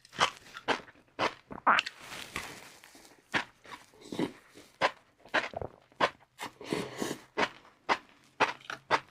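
A person chewing crispy fried noodles, a quick irregular run of sharp crunches several times a second, with a few softer, noisier stretches between the bites.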